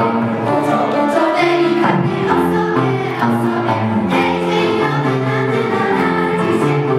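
A girls' choir singing a Polish Christmas carol (kolęda) in unison, accompanied by upright piano and electric guitar.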